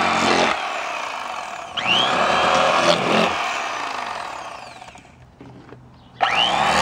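Electric fillet knife cutting the rib bones out of a crappie fillet. It runs in bursts: the motor buzz stops early, starts again with a rising whine about two seconds in, winds down to near quiet, and is switched on again near the end.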